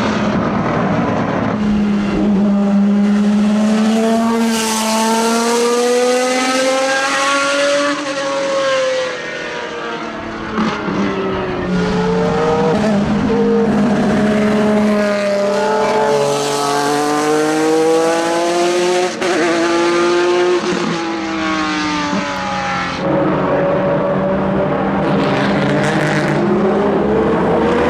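Historic endurance racing cars at full race pace, their engines revving up and falling away as the cars run past one after another, the pitch climbing and dropping several times.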